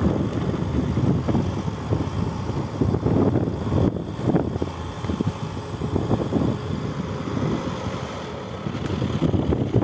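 Vehicle driving along a snow-covered road: engine running and tyres rolling over snow, heard as an uneven low rumble.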